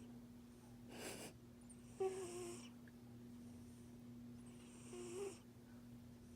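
Pet cat snoring in its sleep: a breathy draw about a second in, then short whistling, squeaky snores at about two and five seconds in.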